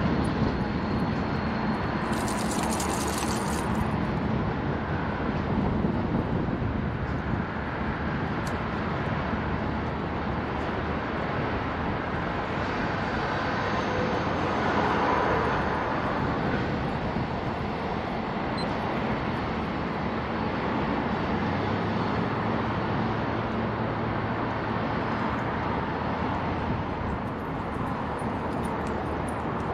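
Steady rumble of road traffic and a freight train on the tracks below, with a brief hiss about two seconds in.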